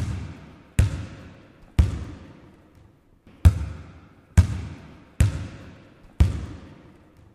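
A basketball bounced on a hard gym floor seven times at an uneven pace, with a longer pause partway through. Each bounce is a sharp thud that echoes and fades over about a second.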